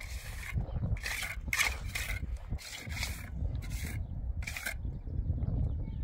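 A steel trowel scraping and spreading wet cement in short rough strokes, about seven of them, stopping near the end.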